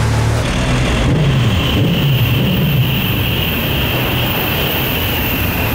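Porsche 991 GT3's flat-six engine running at low revs as the car pulls away slowly, its note rising and falling a little about a second in.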